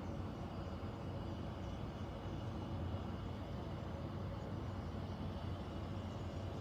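Central air conditioning system running: a steady low hum with a rushing airflow noise over it and faint thin tones above.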